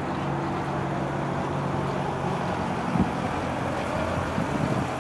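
Cessna 172 Skyhawk's piston engine and propeller droning steadily as the light plane passes close overhead. About three seconds in, the steady drone gives way to a rougher, uneven rumble.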